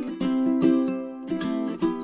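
Acoustic song playing as background music: a plucked string instrument picks a rhythmic pattern of notes, with no singing.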